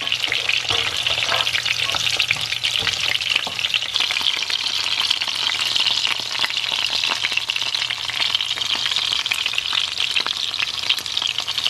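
Minced-chicken fritters frying on their second side in sunflower oil in a pan: a steady, dense crackle and sizzle of spitting fat. The cook takes the pan's lively sizzle as a sign that the fritters are juicy.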